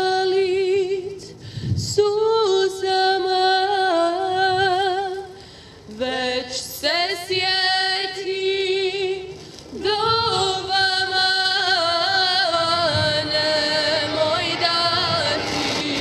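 A woman's voice singing a slow song in long held notes with wide vibrato, in four phrases with short breaks between them. It is an ilahija-style song for the šehidi (fallen fighters).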